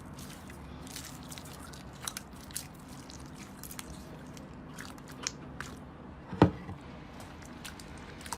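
Slime being squished and pressed by hand, with small scattered crackling clicks and one louder crackle about six and a half seconds in, over a steady low background hum.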